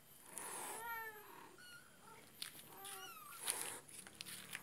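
Cats meowing: about three short, high meows that bend in pitch, with short rustling noises between them.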